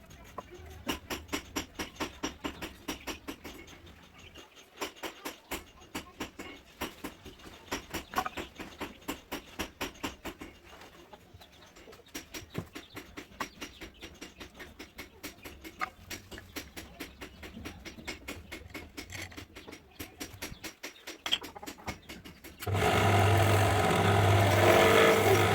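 Steady run of quick blows on steel, about four a second, while the shock-absorber-rod blade is worked. Near the end an electric power tool starts up and runs with a steady hum.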